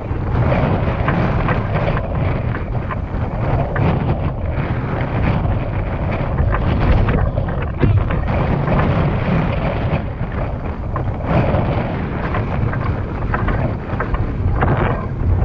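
Wind buffeting the camera microphone: a loud, steady, rumbling noise that rises and falls a little in strength.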